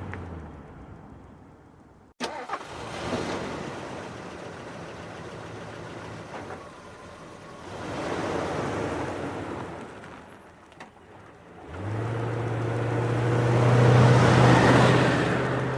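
Car engine sound effect: an engine hum dies away at the start, a sharp click and a few knocks follow about two seconds in, and about twelve seconds in a car engine starts and runs with a steady hum that rises slightly in pitch under a swelling rush of noise.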